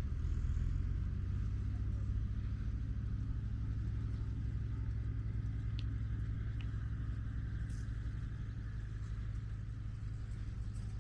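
A steady low rumble, with a faint higher hiss over it.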